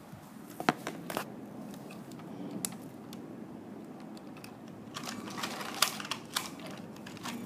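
Lego train running along plastic track with a steady low whir. Scattered sharp plastic clicks and light clatter come and go, busiest about five to six and a half seconds in.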